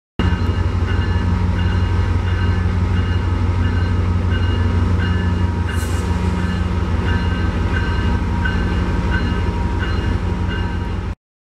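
Metrolink diesel locomotive running with a steady low engine drone as it pulls through the station. A bell rings steadily about twice a second, and there is a short hiss of air near the middle.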